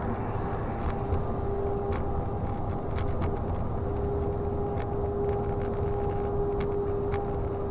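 Steady driving noise inside a moving vehicle's cabin: a low engine and road rumble with a constant whine, and a few light clicks or rattles.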